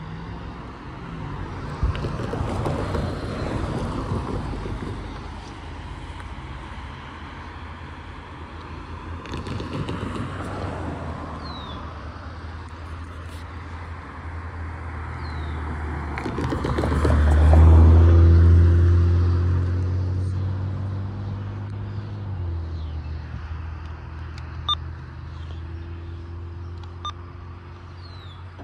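Diesel locomotive of an Amtrak train passing. Its engine rumble builds to a loud peak a little past the middle, then drops in pitch and fades as it moves away. Earlier there are two smaller swells of passing noise.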